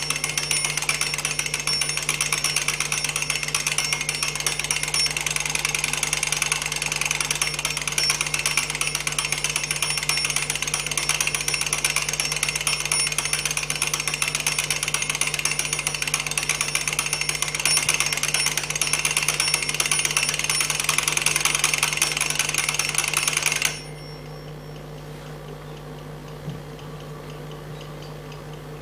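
Twin-bell mechanical alarm clock ringing, its hammer rattling rapidly against the bells. The ringing cuts off suddenly near the end, leaving a low hum.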